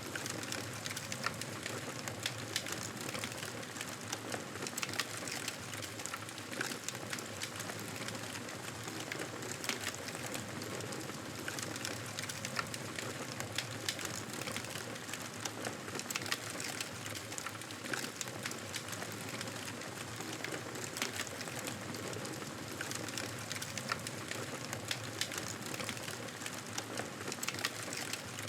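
Fireplace fire crackling: a steady hiss with frequent irregular small pops and snaps.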